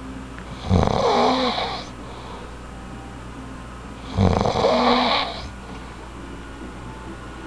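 Snoring: two long snores about three and a half seconds apart, each starting with a low rattle.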